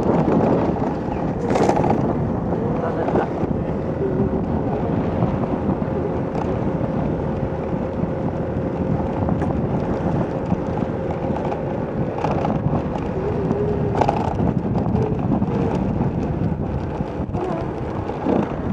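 Wind rushing over the microphone and road noise from a vehicle moving along a street, with a steady engine hum for much of the time.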